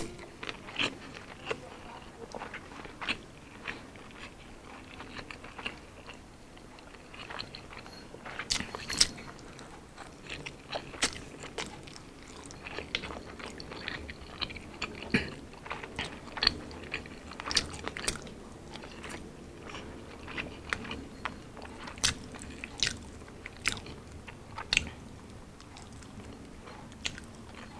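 Close-miked chewing and crunching of battered, deep-fried Filipino street food, with sharp crunches coming irregularly every second or so.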